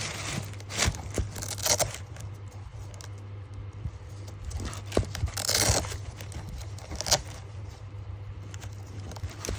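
Paper packaging rustling and crinkling as the sandals are handled, in several short bursts, the longest about halfway through. A steady low hum runs underneath.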